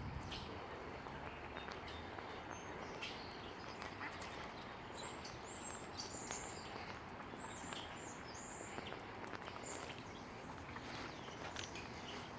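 Short high bird chirps, mostly in the middle stretch, over a steady outdoor noise background with scattered faint clicks.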